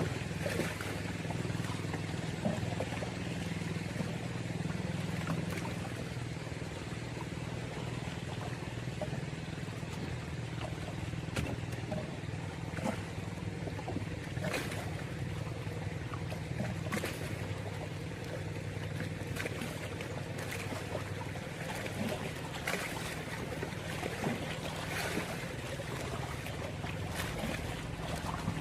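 A steady low motor-like hum under water noise, with scattered sharp clicks and knocks.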